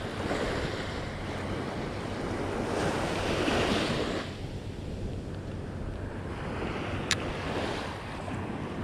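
Small waves breaking and washing up a sandy beach, each wash swelling and fading every few seconds, with wind noise on the microphone. A single brief sharp click about seven seconds in.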